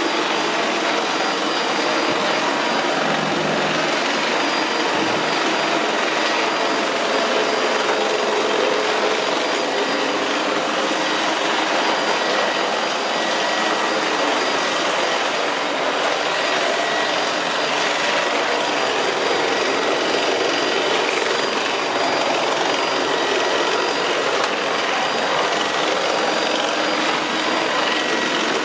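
Cordless stick vacuum with a vacuum-mop (wet-cleaning) head running steadily as it is pushed back and forth over a hard floor. It makes a continuous motor whir with a faint steady high whine.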